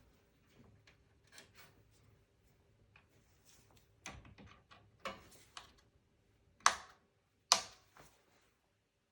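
Scattered small clicks and light knocks of hand tools and screws on a desktop computer's metal chassis as the motherboard screws are taken out, with two sharp, louder clicks close together about two-thirds of the way through.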